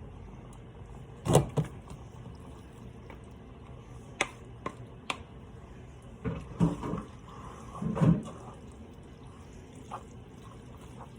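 A metal spoon knocking and scraping against a skillet and casserole dish as the sauced meat-and-macaroni mixture is moved about: a few scattered knocks and short clatters, the loudest about a second in and again near eight seconds.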